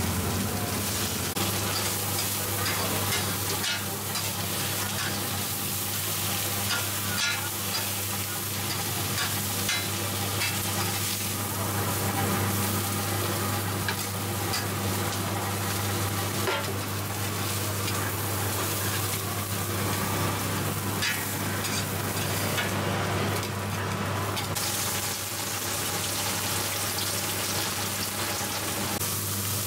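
Shrimp pancake batter frying in oil on a flat griddle: steady sizzling with many small scattered crackles and pops over a steady low hum.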